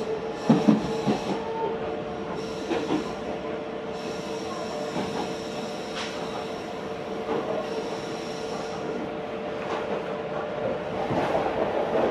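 Meitetsu 4000 series electric commuter train running, heard from inside the car: steady running noise with a steady hum and scattered clicks from the wheels, growing louder near the end.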